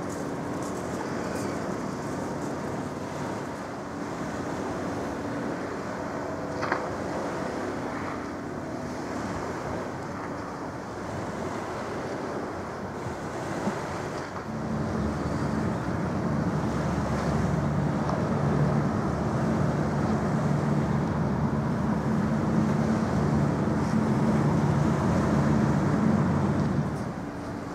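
Outdoor waterside ambience of wind on the microphone and water, under a steady low engine drone. The drone grows much louder about halfway through and drops back shortly before the end.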